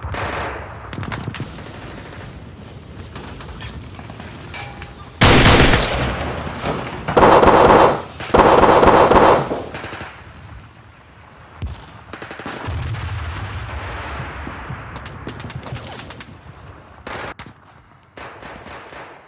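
Three bursts of rapid automatic gunfire, the first about five seconds in and two more close together a few seconds later. Quieter stretches with scattered knocks lie before and after the bursts.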